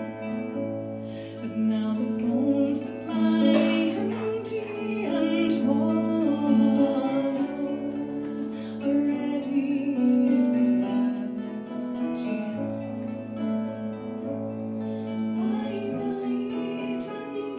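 A live folk band playing a song, with a woman singing the melody over acoustic guitar and fiddle.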